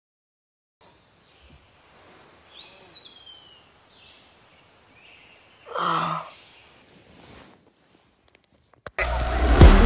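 Faint bird chirps, then a short sleepy groan from a person waking, about six seconds in. Hip-hop music with a deep bass starts loudly near the end.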